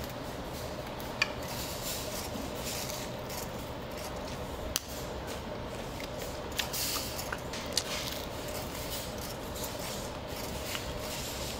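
Close chewing of crispy-fried guobaorou (sweet-and-sour fried pork), crisp outside and soft inside, with a few short sharp clicks, over a steady low hum.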